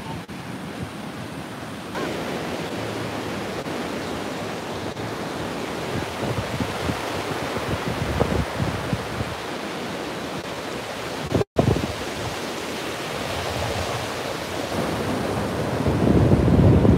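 Surf breaking and washing up a sandy beach, with wind rushing over the microphone. The sound cuts out for an instant about two-thirds of the way through, and a louder low rush comes near the end.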